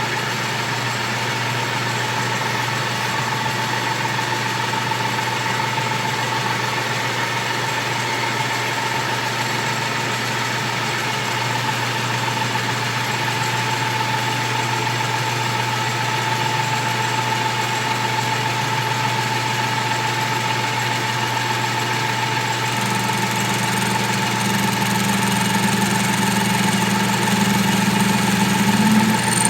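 Chinese-built metal lathe running steadily, its gearing giving off a constant whine over a low hum. About 23 seconds in, a second, deeper hum and a faint high whine join in and it grows slightly louder.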